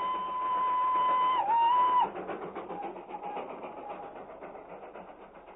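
Train sound effect: a steady whistle that dips briefly in pitch and cuts off about two seconds in, followed by fast rhythmic chugging that fades away.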